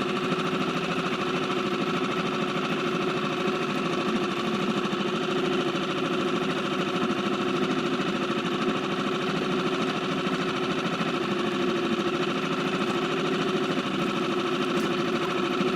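Seatan outboard motor running steadily at slow trolling speed, pushing a small inflatable boat.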